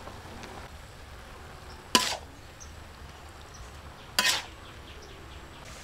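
Metal spatula clanking and scraping against a metal wok while stir-frying noodles: two sharp clanks with a short ring, about two seconds apart, over a faint steady hiss.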